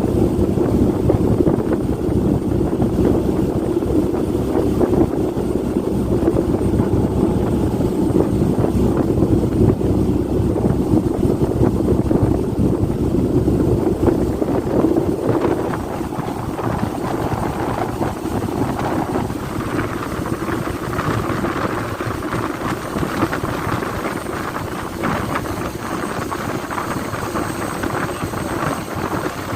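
Engine of a fast river launch running at speed, a steady drone with wind buffeting the microphone. About halfway through the drone fades and the sound turns brighter and thinner.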